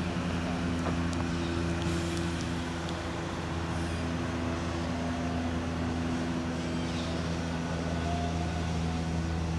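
Rotem Silverliner V electric multiple-unit commuter train pulling away from the station: a steady electric hum with a low drone beneath it.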